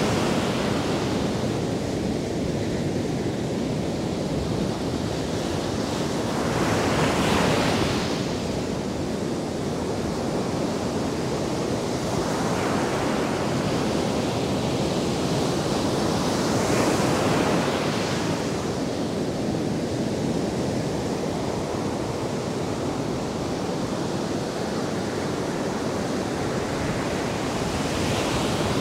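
Atlantic Ocean surf: waves breaking and washing up the sand. Four waves swell and crash as rushes over a steady wash of churning water.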